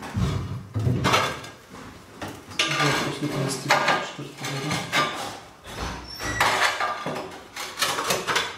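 Ceramic wall tiles clinking and scraping in irregular bursts as a tile sheet is handled and pressed against the wall.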